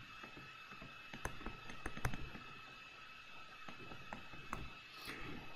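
Faint, irregular taps and clicks of a stylus on a touchscreen tablet while a structure is drawn, over a faint steady high hum.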